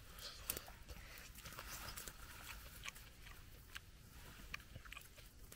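Faint eating sounds: a person chewing noodles, with small scattered clicks.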